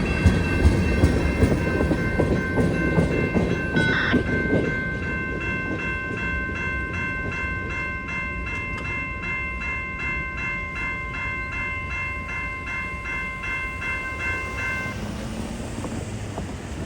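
CWR work train rolling past with a rhythmic clickety-clack of wheels and a steady high-pitched squeal that cuts off near the end. There is a brief louder screech about four seconds in.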